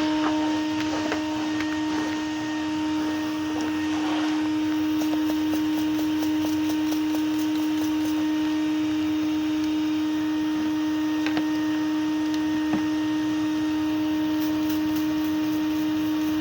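Vacuum cleaner motor running steadily with a constant whine, its blower side pushing air into a truck's exhaust pipe to find exhaust leaks.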